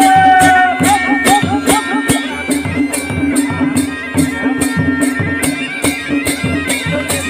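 Kumaoni wedding band music: a masakbeen (bagpipe) plays a wavering melody over a steady drone, with a fast, even beat of drums and cymbals at about three strokes a second.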